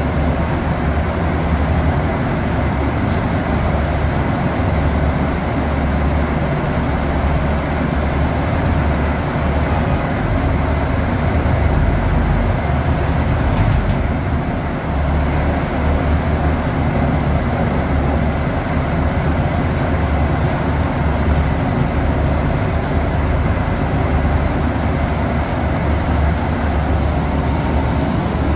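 Scania DC09 five-cylinder diesel engine (280 hp, Euro 6) of a Scania K280UB city bus running under way, heard inside the passenger cabin from the rear seats: a steady low engine drone mixed with road and body noise. The loudness dips briefly about halfway, then picks up again.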